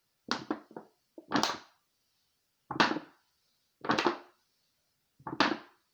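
Breathing in and out through a plastic milk-jug breathing device with a magic eraser sponge in its end as a filter: about five short airy breaths, roughly a second apart.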